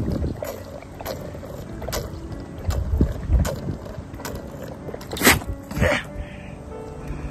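A goat drinking from a metal bucket: a run of slurps and small splashes of water, the two loudest about five and six seconds in as it lifts its head.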